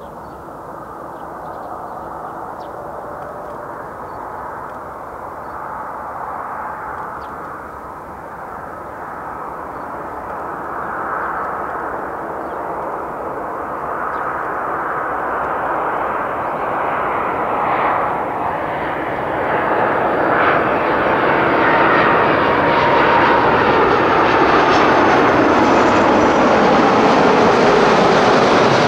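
Airbus A330-300 airliner with Rolls-Royce Trent 700 turbofans flying in on final approach at landing power, gear down. The jet noise grows steadily louder and brighter as the plane closes in low overhead, and is loudest near the end, with a few faint sliding tones in it.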